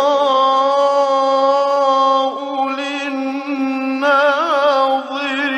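A solo male voice in melodic Quran recitation, drawing out one long held note at the end of a verse. Near the end the pitch wavers and turns in ornaments.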